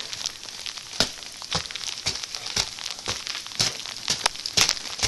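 Footsteps crunching on ice-crusted snow, uneven steps about two a second.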